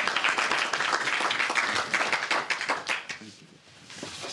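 Applause, many hands clapping, dying away about three seconds in.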